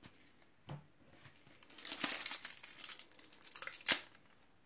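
Foil wrapper of a Panini trading-card pack crinkling and tearing as it is pulled open by hand, for about two seconds from around the middle, ending in one sharp snap.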